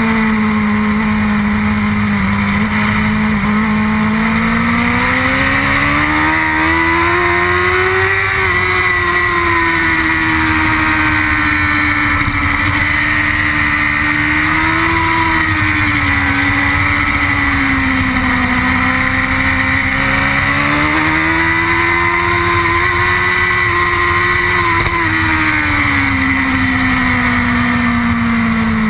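BMW S1000RR superbike's inline-four engine heard from onboard at high revs, its pitch rising and falling smoothly with the throttle through the corners, over a steady rush of wind.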